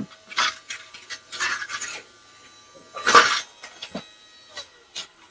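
Plastic parts of a toy vacuum cleaner being handled: scattered clicks, rubbing and rattling, with a louder clatter about three seconds in.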